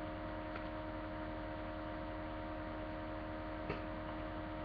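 Steady electrical hum and hiss picked up by a webcam microphone, with a faint click about three-quarters of the way through.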